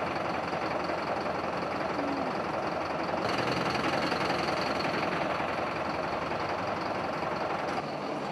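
A fire engine's motor running at a steady idle, a constant noisy hum. The sound changes abruptly about three seconds in and again near the end.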